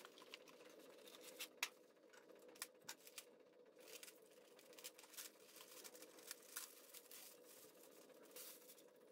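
Faint crinkling and crackling as a roll of chicken wire wrapped in plastic is handled and the plastic is pulled off, with scattered small clicks and a sharper one about a second and a half in.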